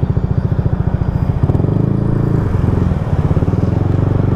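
Motor scooter engine running as it is ridden along, a fast steady pulse whose note grows fuller about a second and a half in, with a brief dip near three seconds.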